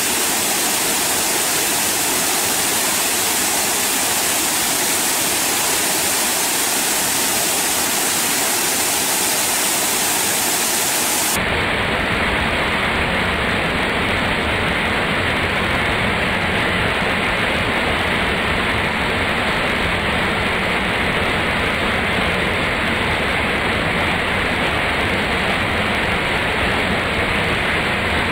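Small waterfall pouring onto rocks, a steady rushing hiss of falling and splashing water. About eleven seconds in the sound shifts abruptly and becomes deeper and fuller.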